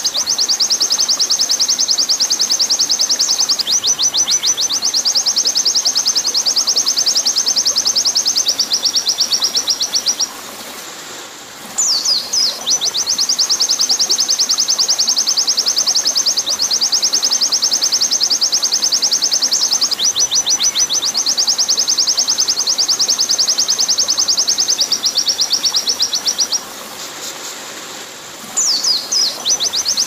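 White-eye (pleci) singing long, very rapid high trills of several seconds each, broken by short falling notes, with two brief pauses. Steady flowing water runs underneath.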